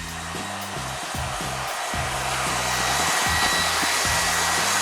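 A table saw running with a steady whirring hiss that swells slightly, with background music underneath.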